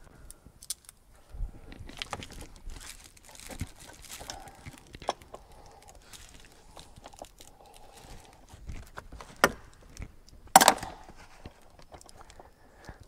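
Hands working a vinyl and plastic interior trim piece into place in a 1971 Corvette's cabin, trying to line up its screw holes: scattered clicks, knocks and rustling. The loudest noise is a brief burst about ten and a half seconds in.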